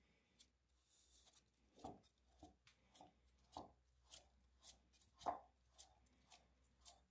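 Faint, evenly spaced clicks, about two a second, from a wood lathe's chuck and spindle being turned slowly by hand.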